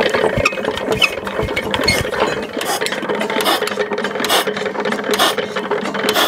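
Ruston & Hornsby AP 6 hp single-cylinder stationary engine running, with a steady hum under a clattering of its valve gear and mechanism.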